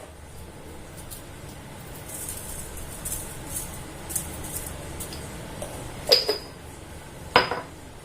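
Spoon clinking twice against a bowl while salt is added to the masala, after some faint scraping.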